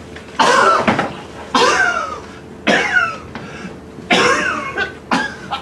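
A man coughing hard, five harsh, voiced bouts about a second apart, each starting suddenly.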